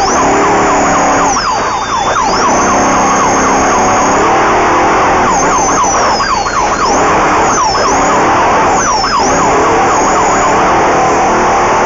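Off-road race vehicle's engine revving up and down over and over, under a loud rumble, with a thin high whine that glides up and down.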